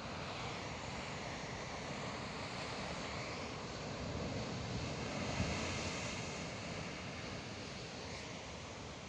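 Sea waves washing steadily, swelling a little midway, with wind rumbling on the microphone and a short low thump about five seconds in.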